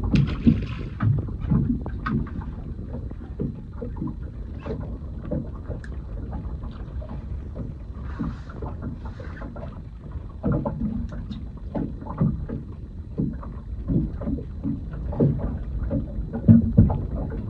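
Scattered knocks and clatter of fishing tackle being handled on the deck of a small boat, over a steady low rumble; the loudest knocks come near the end.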